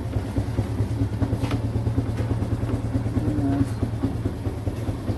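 A motor vehicle engine running with a steady low drone and a fast, even pulsing.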